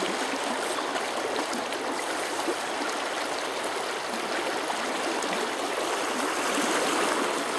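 Shallow river running over a gravel and stone bed: a steady rush of flowing water.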